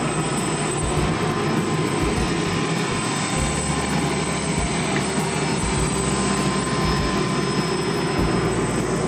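Airliner engines running steadily, heard from inside the cabin: a constant drone with a faint steady whine above it.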